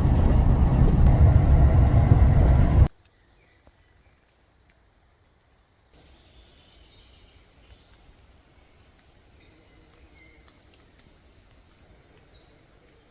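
Loud, steady rumbling noise, heaviest in the low end, that cuts off abruptly about three seconds in; after it, quiet outdoor ambience with faint bird calls.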